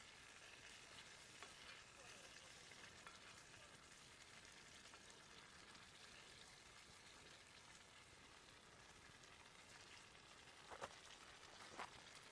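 Faint, steady sizzling of food cooking over a campfire, with two short sharp pops near the end.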